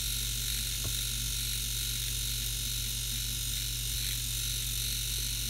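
Finishing Touch Lumina hair remover running with a steady electric buzz as it trims fine hair.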